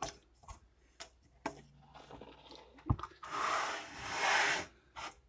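A small stick welder being handled on a workbench: a few light clicks and a hard knock, then its metal case scraping across the bench twice as it is turned round.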